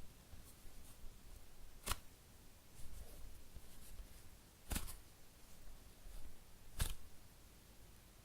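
Fingers handling a soft, slow-rising foam squishy toy shaped like a cheesecake, with three sharp ticks or pats spaced a couple of seconds apart and faint crackling between them.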